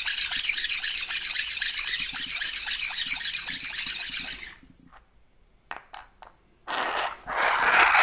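Machined metal surfaces of a bearing carriage being scrubbed clean with quick rubbing strokes, a squeaky, scratchy rasp. The scrubbing stops a little past halfway, a few light clicks follow, and it starts again near the end.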